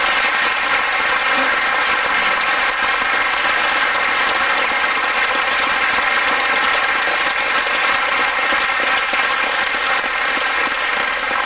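Audience applauding steadily, a dense even clapping that holds its level throughout.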